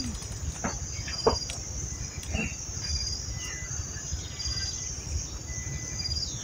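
Steady high-pitched chorus of insects, with short chirps repeating over it, above a low rumble. A few short knocks come through, the sharpest about a second in.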